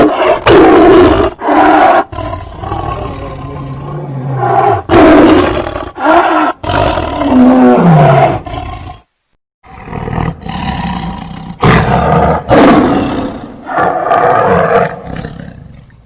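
Fantasy dragon sound effects: a run of loud, lion-like roars and growls, some short and some drawn out. One call slides down in pitch about eight seconds in, and there is a brief break about nine seconds in.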